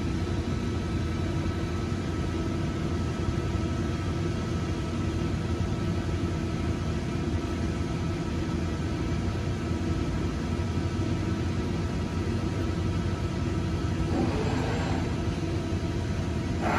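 Giddings & Lewis 25V CNC vertical machining center running under power: a steady mechanical hum with a few faint steady tones. A brief rushing sound comes about fourteen seconds in.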